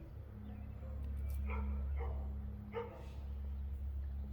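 A dog barking twice, short barks a little over a second apart, over a steady low hum.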